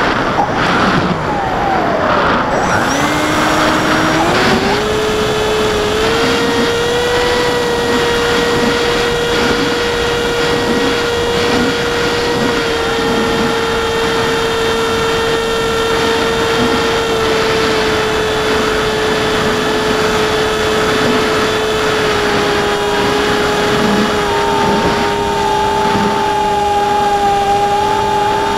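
AXN Floater Jet's electric motor and pusher propeller, heard from a camera on board the plane. It makes a steady whine that climbs in pitch a few seconds in as the throttle opens, then holds, over a constant rush of wind. A second, higher tone joins near the end.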